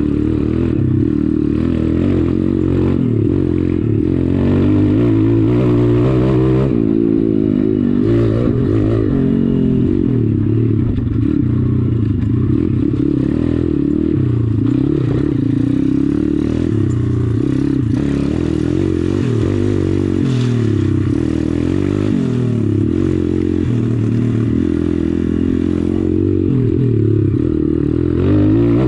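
Pit bike with a 140cc YX single-cylinder four-stroke engine, ridden off road, its revs rising and falling over and over.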